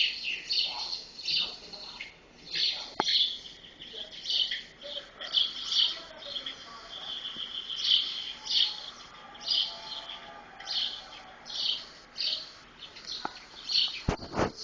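Small birds chirping: short, high calls repeated about once or twice a second. A sharp knock near the end.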